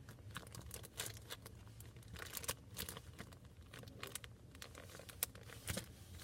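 Faint, irregular crackling and clicking of slime being handled: pulled, squished and peeled from a surface.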